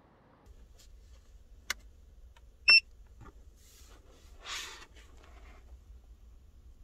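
A click, then a single short, loud two-tone electronic beep from a portable power station, followed by a brief rustle of handling, over a low steady hum.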